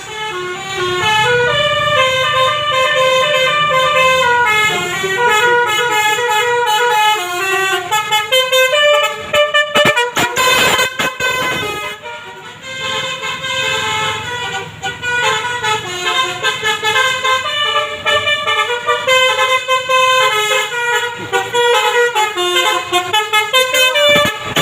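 Telolet basuri bus horn playing a tune of short stepped notes in quick succession. It breaks off briefly about ten seconds in, then takes up the melody again.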